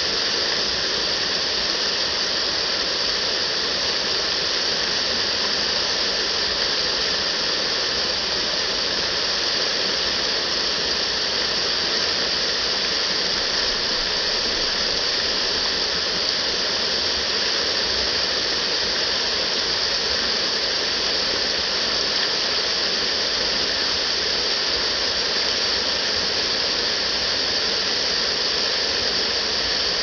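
Waterfall splashing down a rock face: a steady, unbroken rushing hiss.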